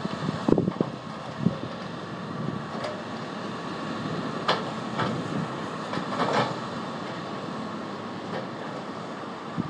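Hydraulic excavator running steadily as it shifts rip-rap boulders, with a faint steady whine over the engine and several sharp clacks of rock on rock around the middle. A few dull thumps come in the first couple of seconds.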